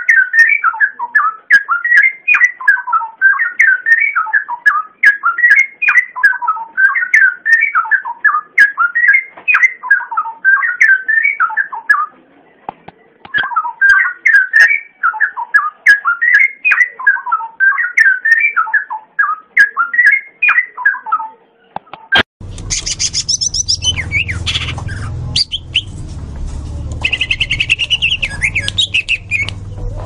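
Leafbird (cucak ijo) singing a long, fast, varied warbling song of quick rising and falling phrases, with a short break about halfway through. About 22 seconds in, the recording cuts abruptly to another with a steady low hum behind it, where higher chirps and short trills are heard.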